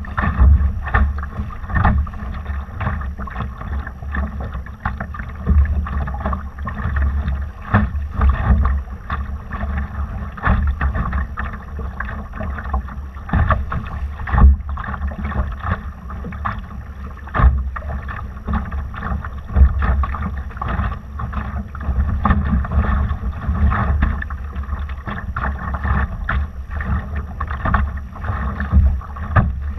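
Laser sailing dinghy under way, with water rushing and slapping against the hull and wind buffeting the microphone, broken by frequent short splashes and knocks.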